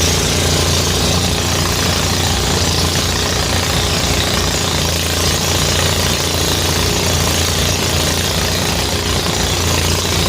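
Motorised rice thresher (gerabag) running steadily under load: a constant engine hum with a fast, even pulse, beneath a loud, even rush.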